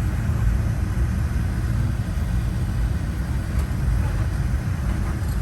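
Steady low rumble with a hiss of air, as heard inside the cabin of a Boeing 787-9 airliner. No rising engine whine stands out.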